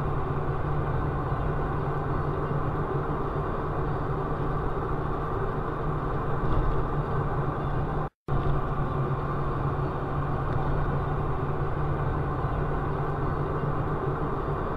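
Steady engine drone and road noise from inside a vehicle driving along a highway, dropping out for a split second about eight seconds in.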